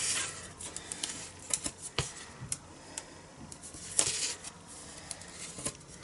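Double-sided Tear & Tape adhesive being pulled off its roll, torn by hand and pressed onto cardstock: a few short clicks and rustles, the loudest about four seconds in.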